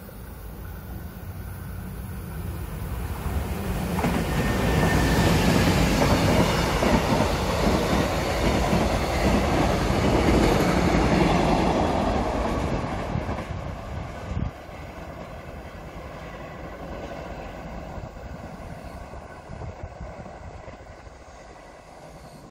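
A Mugunghwa-ho passenger train passing close by, its wheels clattering over the rails. The noise builds, stays loud for about ten seconds as the coaches go by, then fades as the train moves away.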